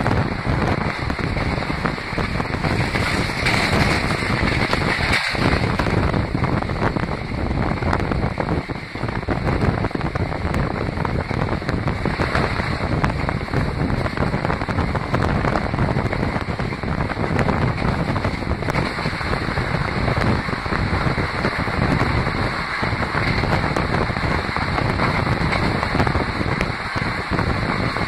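Steady rush of wind on the microphone and running noise of an express passenger train at speed, heard from its open doorway.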